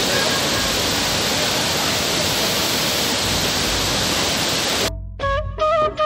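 Waterfall and rushing rocky stream, a steady dense roar of water. It cuts off suddenly about five seconds in, and music with a melody starts.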